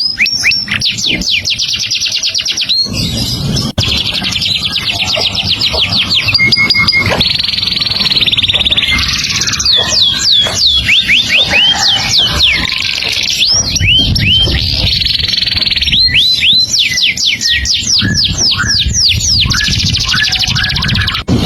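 Songbird singing a fast, unbroken, varied song: quick runs of high falling whistles, several a second, alternating with dense buzzy trills.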